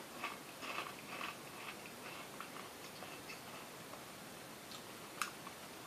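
Faint crunching of a tortilla chip being chewed, mostly in the first second and a half and then trailing off, with one sharp click near the end.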